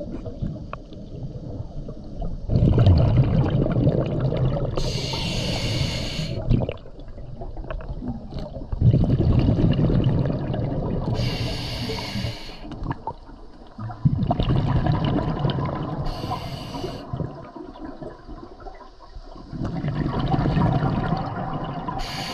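Scuba diver breathing through a regulator underwater. Each breath has a short high hiss and a long bubbling rush of exhaled bubbles, about four breaths in all.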